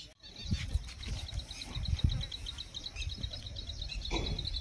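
A rapid, even series of high chirps from a small animal, about five a second, over an irregular low rumble.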